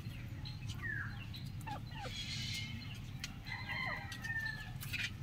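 Chickens calling: several short gliding calls, then a longer call of about a second near the end, over a steady low rumble.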